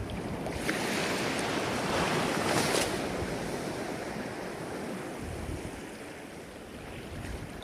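Ocean waves washing ashore: one surge swells to a peak about two to three seconds in, then recedes. Low wind rumble on the microphone.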